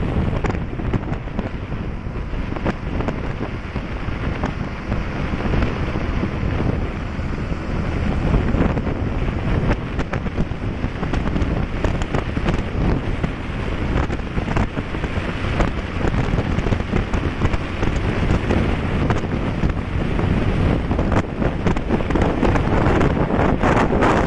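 Wind rushing and buffeting over the microphone of a motorcycle moving at speed, with road noise underneath.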